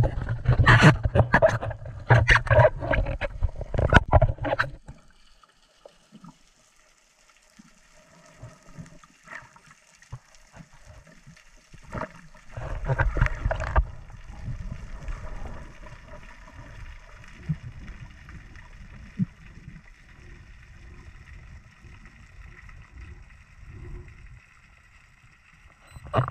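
Water splashing and sloshing around a camera just under the surface for about five seconds, then the muffled hush of the camera underwater, with a second loud rush of water about twelve seconds in and soft low rumbles through the rest.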